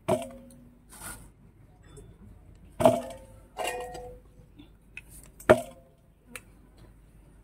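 Lumps of dough dropped one by one into a stainless steel bowl, each landing with a knock and a brief ring of the bowl. There are three louder ones, right at the start, about three seconds in and about five and a half seconds in, with softer knocks between.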